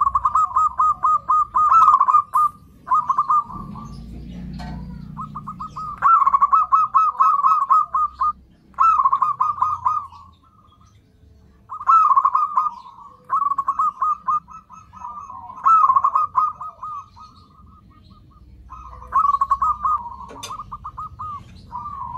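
Zebra dove calling: bouts of rapid staccato cooing notes, each bout a few seconds long, repeated after short pauses.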